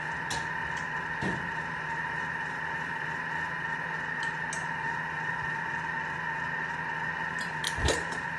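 Thermomix running steadily with a constant motor whine while sautéing onion, with a few light clicks and a low knock near the end from handling things on the bench.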